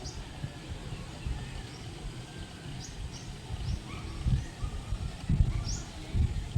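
Birds calling outdoors with short, high, rising chirps repeated every second or so, over a low rumble with a few heavier thumps in the second half.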